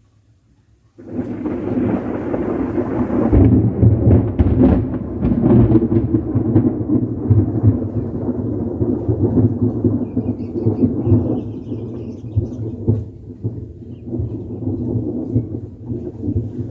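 Close lightning strike: a sudden loud thunderclap about a second in, followed by a long rumble of thunder with crackles that slowly dies away.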